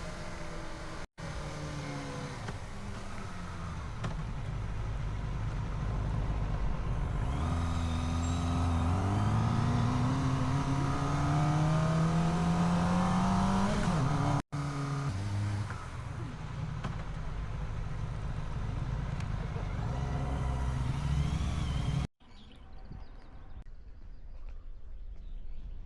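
Kawasaki motorcycle engine running on the move over a steady rush of wind. Its pitch rises steadily for several seconds as it accelerates, then settles. Near the end it gives way abruptly to a much quieter background.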